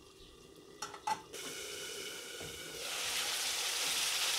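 Ridge gourd pieces sizzling in oil and their own released water in a steel karai, starting faint and growing louder over the last couple of seconds. Two light knocks about a second in.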